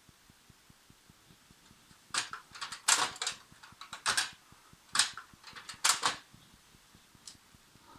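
Hard plastic clattering and scraping in several quick bursts, starting about two seconds in and lasting about four seconds, with one small click near the end: the parts of an HP LaserJet M104A laser printer being handled during disassembly.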